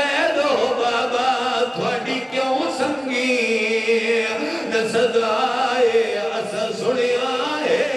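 A man's voice chanting a mournful recitation through a microphone and public-address system, held in long, wavering melodic notes: the sung lament passage of a Shia majlis address.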